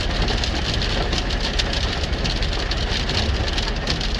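Hailstones and rain pelting a semi truck's cab and hood, a dense, irregular patter of hits. Under it, the truck's engine idles steadily.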